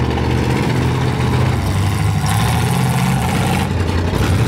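Demolition derby pickup trucks' engines running loud and steady, revving up near the end.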